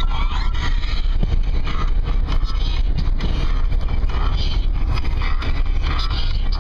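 Wind rushing in through an open window of a moving car, over a steady low rumble of road and engine noise.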